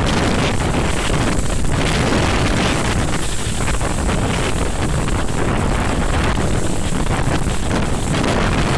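Typhoon wind blowing hard across the microphone: loud, continuous wind noise that surges a little from moment to moment.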